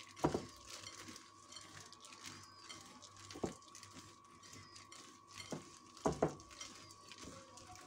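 A gloved hand kneading crushed roasted peanuts into caramel in a ceramic bowl: soft gritty rustling of the peanut crumbs with a few light knocks against the bowl. A faint steady whine runs underneath.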